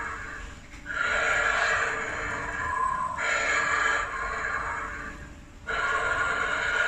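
Animatronic werewolf Halloween prop's sound effect playing through its speaker: breathy snarling growls in three long bursts, each starting abruptly.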